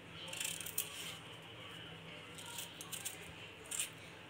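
Small knife peeling the skin off a raw green banana: a few short, faint scraping strokes.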